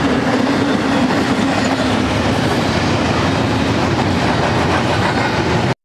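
Double-stack intermodal freight cars rolling past on the rails, a steady loud rail noise that cuts off suddenly near the end.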